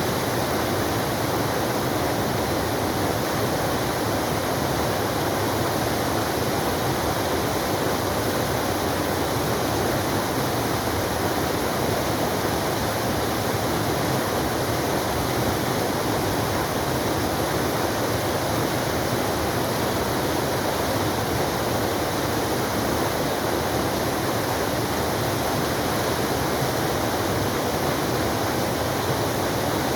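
Waterfall pouring steadily, a constant rushing of falling water with no change in level.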